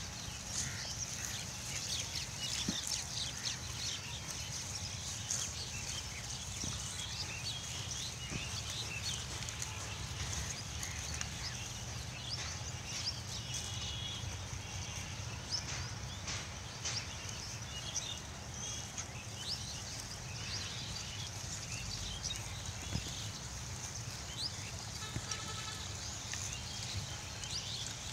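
Herd of pigs foraging on a rubbish dump: grunts and brief calls among many scattered crackles and rustles of plastic litter being rooted through, over a steady outdoor hum.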